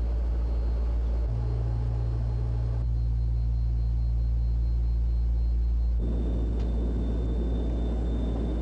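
Military transport plane's engines droning steadily, heard inside the cabin, with a few sudden small shifts in tone.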